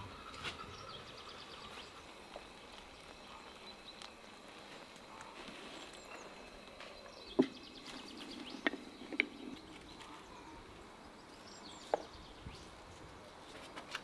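Quiet outdoor ambience with small birds trilling, broken by a few sharp clinks and knocks as the glass lid of a frying pan is handled, the loudest about seven seconds in.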